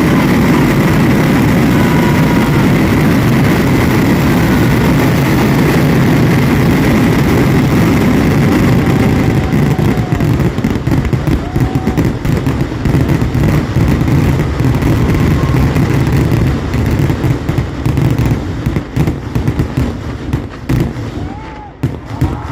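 Kerala temple-festival fireworks barrage: a rapid, unbroken string of loud explosions that merge into one continuous rumble. Over the last few seconds it thins out into separate sharp bangs with short gaps between them.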